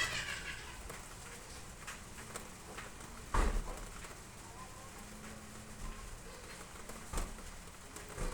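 Steady hiss of rain with a few scattered knocks, the loudest about three and a half seconds in.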